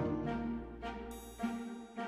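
Background music: an instrumental melody of short pitched notes changing about every half second.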